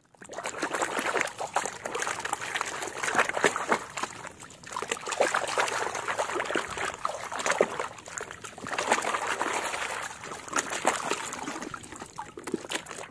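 Muddy water sloshing and splashing in a plastic basin as a plastic toy train is swished and scrubbed by hand, with many small splatters and clicks in repeated bouts.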